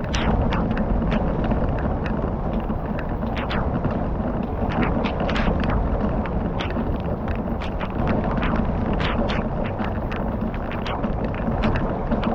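Wood fire crackling, with irregular sharp pops over a steady low rush.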